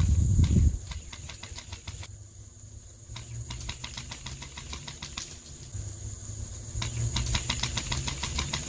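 Polarstar Kythera HPA airsoft rifle with a homemade fiberglass-packed silencer, firing runs of quick semi-auto shots that come through as soft clicks, several a second, much like someone running. Over them runs a steady high insect buzz, with a low rumble in the first second.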